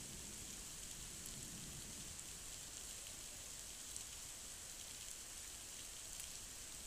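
Heavy thunderstorm rain pouring down onto wet ground and trees, a steady hiss with a few faint drop ticks.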